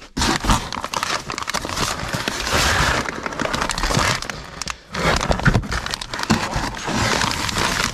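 Plastic packaging crinkling and rustling as it is handled, in two long stretches with a short break about five seconds in.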